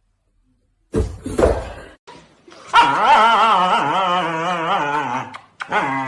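A dog vocalizing: a couple of rough noises about a second in, then a long, wavering, pitched whine of about two and a half seconds, and a shorter one near the end.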